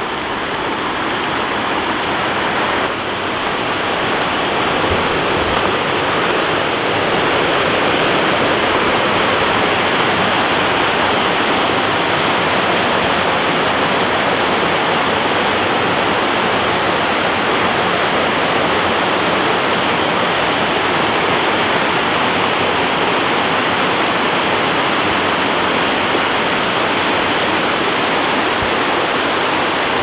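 Creek water rushing over rocks, with a small waterfall pouring out of a rock face into the stream: a loud, steady rush that grows louder over the first few seconds and then holds.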